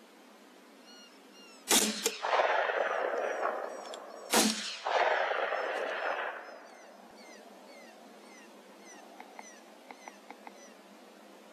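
Two rifle shots about two and a half seconds apart, each a sharp crack that trails off over a second or two.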